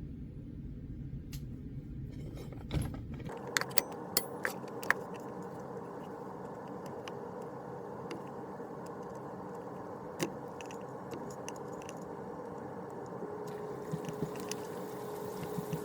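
A chisel working cured Acraglas bedding compound off a rifle stock, with a cluster of sharp clicks and light scrapes about three to five seconds in, then a few fainter clicks, over a steady background hum.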